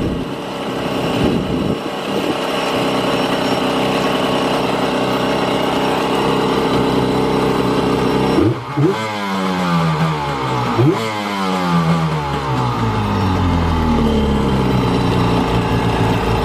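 Jet ski engine running on a flushing hose, idling steadily, then revved twice, about eight and eleven seconds in, with the revs sliding slowly back down to idle after each blip.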